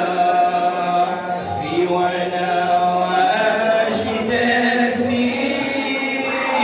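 Men's voices chanting unaccompanied through microphones, in long held notes that slide gently up and down.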